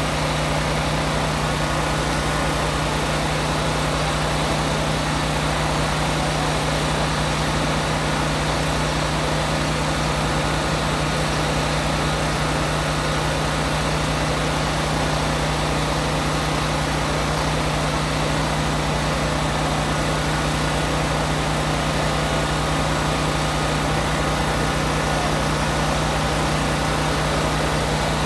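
An engine running steadily at idle: a constant, unchanging mechanical drone with a strong low hum.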